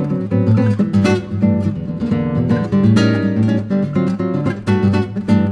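Background music: a song's instrumental passage with strummed acoustic guitar keeping a steady rhythm.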